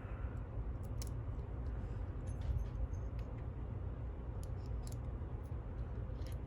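Scattered faint clicks and taps of small lock parts and tools being handled while the picked lock is taken apart, over a steady low hum.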